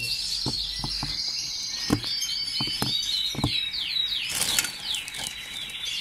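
Canaries chirping and trilling in the background, with a few light knocks and a short flurry of wingbeats about four and a half seconds in as a red canary is caught in the hand.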